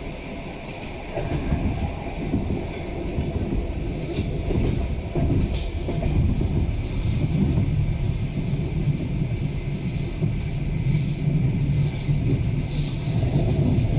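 Train running on rails: a steady low rumble with the clatter of its wheels.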